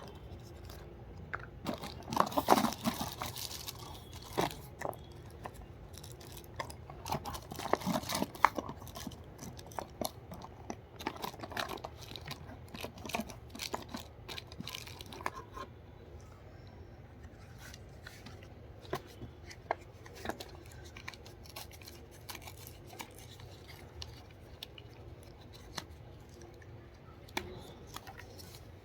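Packaging being torn open and crinkled by hand: louder bouts of tearing about two and eight seconds in, then scattered crackles and clicks.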